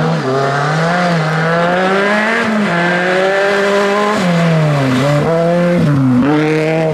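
Honda Civic hatchback rally car's four-cylinder engine running at high revs through a gravel corner. Its pitch climbs and drops several times as the throttle is lifted and reapplied.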